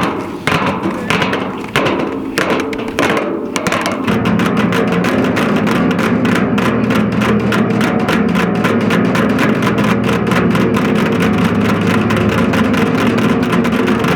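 A few separate sharp knocks, then from about four seconds in music with steady held tones and a fast, even tapping rhythm.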